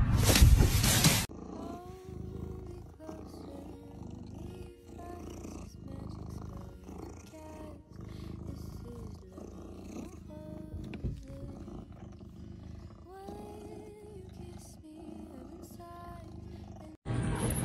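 A loud burst of noise in the first second, then a domestic tuxedo cat purring with a deep rumble while being scratched under the chin, with short squeaky rising and falling chirps over the purr.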